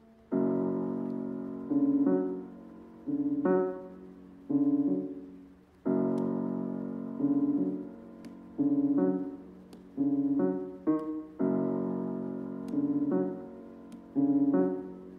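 Piano music: struck chords and single notes that ring and fade away, beginning a moment in, in a phrase that repeats about every six seconds.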